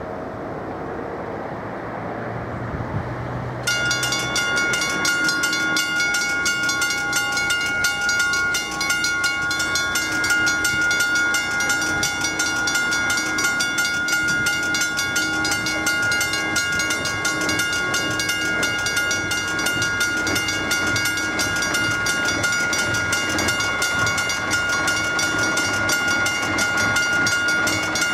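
Level-crossing warning bell starting abruptly about four seconds in and ringing on in a fast, even, high-pitched ring, the signal that the barriers are lowering for an approaching train. Before it starts, a passing vehicle is heard.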